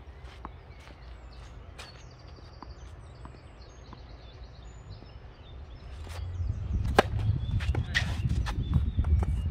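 Tennis racket strings striking the ball on a serve, a sharp crack about seven seconds in, followed about a second later by a second hit as the ball is played back. Before the serve there are soft taps of the ball being bounced, with small birds chirping, and a low wind rumble on the microphone grows in the second half.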